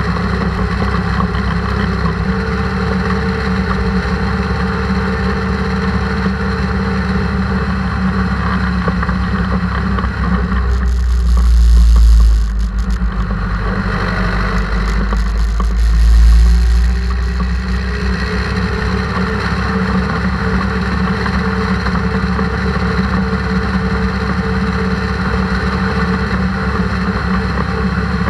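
Zetor tractor's diesel engine running steadily as the tractor drives along the road, heard close up. An oncoming tractor passes close by, with two loud low rushes about 11 and 16 seconds in.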